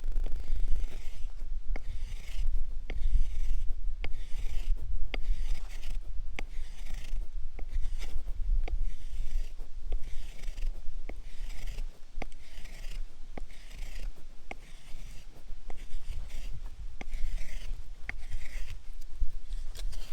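Rhythmic rasping strokes, about one a second, each with a sharp click, over a steady low rumble.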